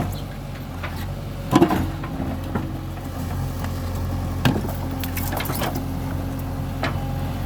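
JCB 3DX backhoe loader's diesel engine running steadily while it digs, with sharp knocks and cracks from the bucket working the soil, the loudest about one and a half seconds in and more around four and a half to six seconds in.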